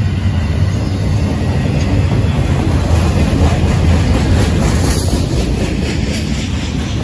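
Double-stack intermodal freight train rolling past: a steady low rumble of the well cars' wheels on the rails, with faint regular clicking in the second half.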